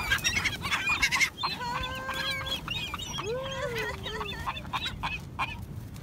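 Gulls calling in a crowd around food: many short squawks and a few longer cries, with a cluster of sharp rustling strokes in the first second or so.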